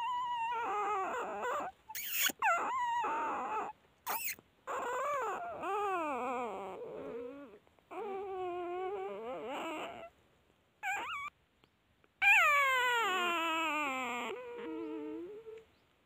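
Newborn puppies whimpering and crying in a series of high, wavering calls. The loudest, about twelve seconds in, starts high and slides down in pitch over about three seconds.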